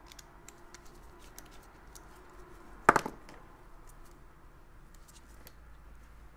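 Faint small clicks and rustles of gloved hands handling a plastic three-pin mains plug, a screwdriver and its wires, with one brief loud sound about three seconds in.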